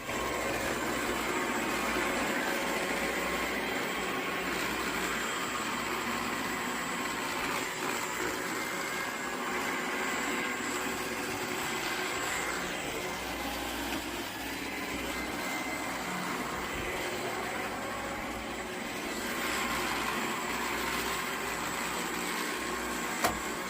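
iRobot Roomba 694 robot vacuum running: a steady whirring noise of its vacuum motor, with faint steady tones, and one sharp click near the end.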